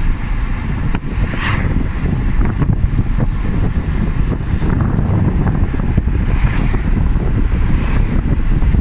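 Wind buffeting the microphone of a moving car: a loud, steady low rumble, with a few brief higher hisses about one and a half and four and a half seconds in.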